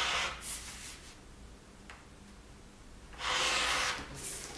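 Rotary cutter rolling along an acrylic ruler through a stack of five layers of quilting cotton on a cutting mat: one cutting stroke ends just after the start, and a second stroke of about a second comes near the end, each a noisy scrape.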